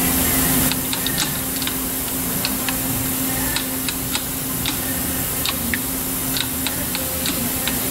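Irregular light metallic clicks and ticks, two or three a second, from gearbox parts being handled on a steel bench, over a steady workshop hum. A high hiss drops away under a second in.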